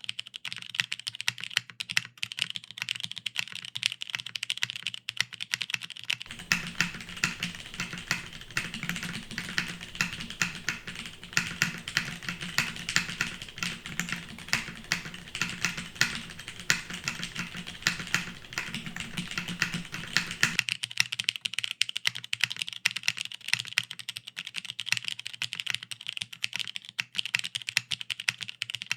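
Continuous typing on a TGR Jane V2 ME mechanical keyboard: lubed vintage Cherry MX Brown tactile switches on a top-mounted FR4 half plate with no foam, under DCS keycaps, giving a fast, steady run of keystrokes. From about six seconds in until about twenty seconds in, the keystrokes sound deeper and fuller.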